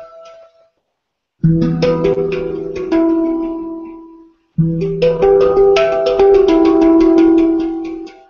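Handpan (steel hang-style drum) played with the fingers: quick runs of struck, ringing notes over a deep note sounding beneath them. The sound cuts out abruptly for a moment near the start and again midway.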